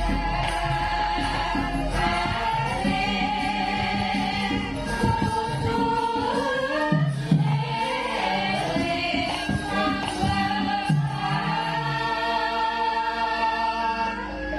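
Javanese gamelan music with a sinden, a female singer, carrying a long, gliding melodic vocal line over sustained metallophone tones and frequent drum strokes.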